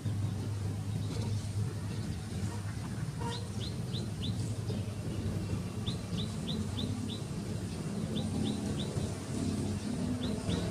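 A small bird calling in runs of four or five quick, high chirps, repeated every couple of seconds, over a steady low rumble of background noise.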